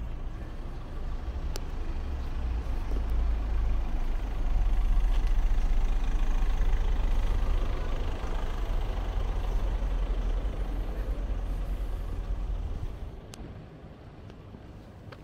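Heavy road vehicle passing close by: a deep engine rumble that builds, is loudest about five to eight seconds in, then falls away a couple of seconds before the end.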